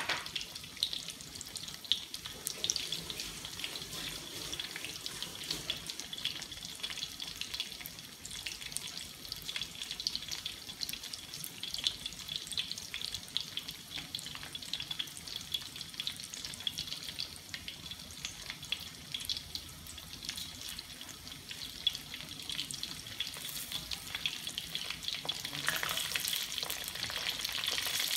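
Chicken pieces deep-frying in hot oil in a wok: a steady, dense crackling sizzle full of small pops. Near the end it grows louder as a fork moves the pieces in the oil.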